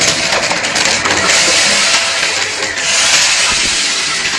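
Shark Navigator upright vacuum running over a shag rug, sucking up confetti, sequins and small beads that crackle and rattle through it. The first second is full of quick clicks, then it turns into a steadier, louder hissing rush.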